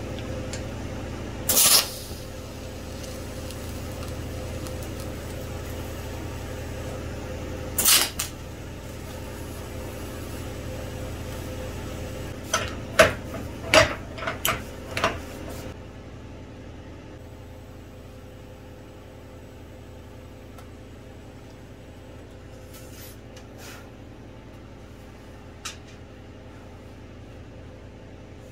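TIG welder tacking a steel splined hub to a cast flange held in a vise: two short bursts of arc noise, about two and eight seconds in, over a steady low hum. A quick run of sharp metallic clicks and knocks follows around thirteen to fifteen seconds in, then only the hum remains.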